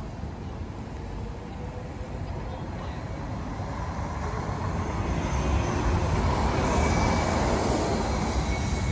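Battery-electric VDL Citea city bus driving past at low speed. Its tyre and drive noise, with a low rumble, grows louder as it comes close, and a faint thin whine shows near the end.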